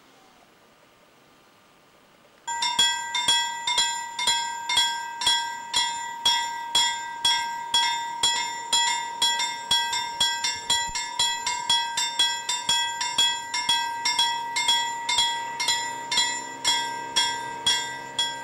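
Level-crossing warning bell starting about two and a half seconds in and ringing in quick, even strokes, about two a second, as the crossing signals warn of an approaching train. Near the end a low steady engine drone joins in beneath the bell as the train draws near.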